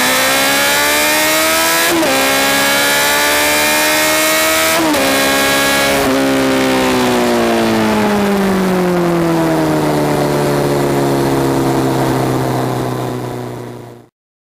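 Honda CBR1100XX Super Blackbird's inline-four through a Takkoni exhaust with straight pipes in the mufflers, pulling hard with quick upshifts about two, five and six seconds in. The throttle then closes and the revs fall away to a steady low note that fades out near the end.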